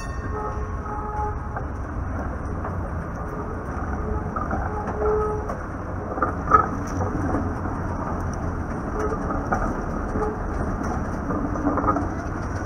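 A 1946 PCC streetcar rolling slowly through a curve and over crossing track, its wheels rumbling with squealing tones that come and go. There is a sharp clack about six and a half seconds in.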